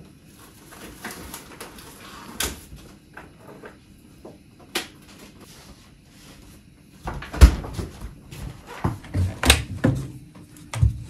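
Kitchen handling sounds: a refrigerator door and food packs being taken out and set down, scattered clicks and knocks. Several louder thumps come in the second half as things are put down on the counter.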